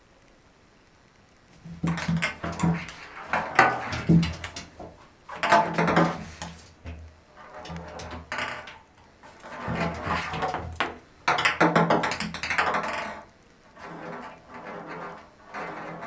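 A ping pong ball clattering and rolling around a bathtub as a cat bats it, in irregular bursts of rapid clicks with a hollow hum beneath. The first couple of seconds are quiet, and there is a short lull near the end.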